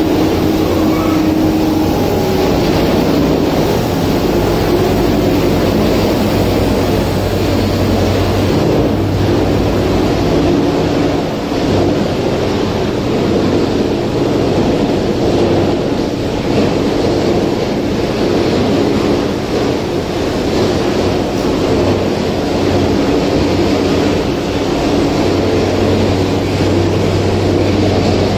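Factory machinery running continuously: a steady mechanical din with a low hum under it.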